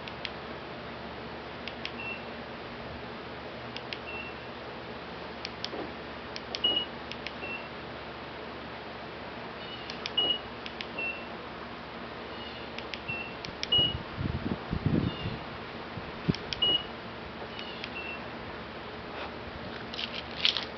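Acura keyless-entry lock confirmation beeps from two cars, a 2012 TSX V6 and a 2008 TL Type S, sounding alternately. Each short chirp comes just after a click. The TL's beep is a slightly deeper tone than the TSX's. A brief low rumble comes about two-thirds of the way through.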